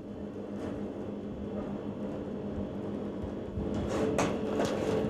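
A steady kitchen hum that grows slightly louder. From about three and a half seconds in, a run of sharp clinks and scrapes as shredded apple is tossed in a stainless-steel mixing bowl.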